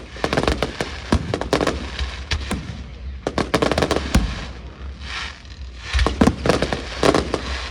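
Aerial fireworks going off in rapid volleys of sharp bangs and crackling reports, with short lulls between the volleys.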